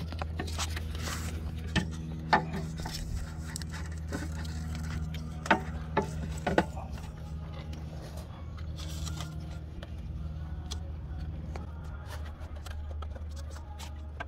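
Hand work on metal engine parts around the direct-injection fuel injectors and fuel rail: a few sharp metallic clicks in the first half, with light scraping and rubbing, over a steady low hum.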